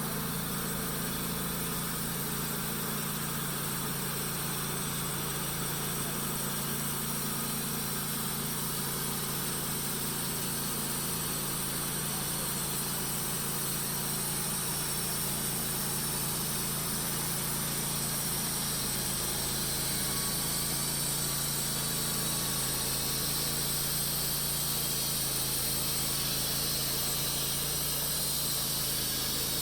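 A small engine running steadily at a constant speed, growing slightly louder in the last third.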